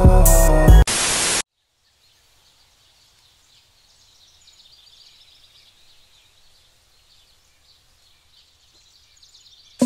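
Intro music stops about a second in, followed by a brief burst of static-like hiss that cuts off sharply. Then comes near-quiet room tone with faint high-pitched chirping, and music starts again loudly at the very end.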